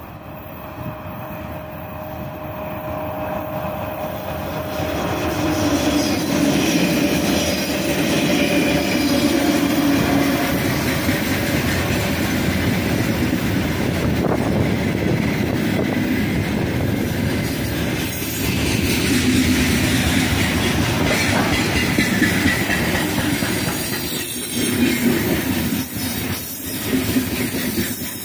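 A 3ES5K 'Ermak' three-section electric freight locomotive approaches and passes, its running noise growing louder over the first several seconds. A long, heavy freight train of open gondola wagons then rolls past with a steady rumble and clatter of wheels on the rails.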